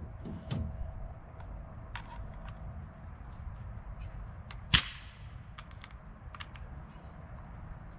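A nail gun fires once: a single sharp crack about halfway through, with a few light clicks and taps around it.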